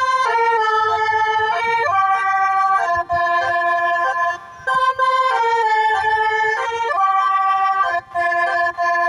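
Bus telolet horn, a multi-tone Indonesian novelty horn, playing a tune of held chords. Each note lasts from about half a second to two seconds, with short breaks about three, four and a half, and eight seconds in.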